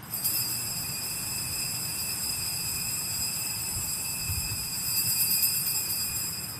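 Altar bells (sanctus bells) shaken continuously, a steady high jingling ring that marks the elevation of the chalice at the consecration. It starts suddenly and dies away near the end.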